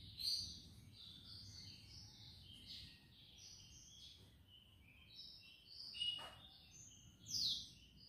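Small songbirds twittering: a continuous run of short, varied high chirps, with a few louder notes just after the start, about six seconds in and near the end.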